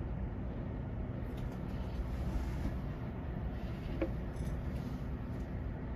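Steady low background rumble with a few faint soft rustles and a brief short tone about four seconds in.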